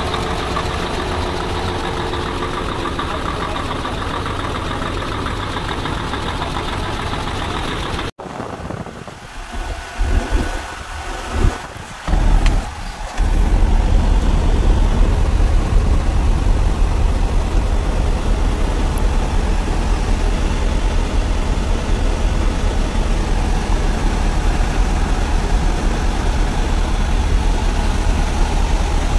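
Mercedes truck's diesel engine idling with the air conditioning switched on. About eight seconds in the sound cuts off. A few seconds of uneven low bumps follow, then a steady deep idle rumble heard from inside the cab.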